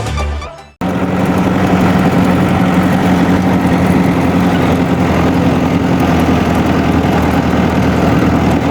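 Intro music that cuts off just under a second in, then a diesel farm engine running steadily at an even speed.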